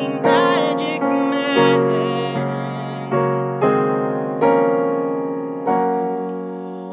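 Digital piano playing a slow instrumental passage of block chords, each chord struck and left to fade before the next, about one every half to one second.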